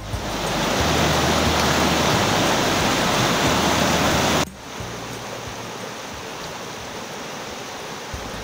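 Rushing water of a rocky mountain creek running over white-water rapids between boulders. About four and a half seconds in it drops suddenly to a quieter, steady rush of shallow river water.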